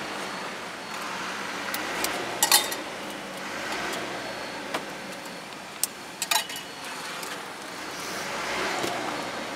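Sharp metal clinks and knocks of cooking utensils and pans, the loudest ringing briefly about two and a half seconds in and a quick pair a little after six seconds, over a steady background of street noise.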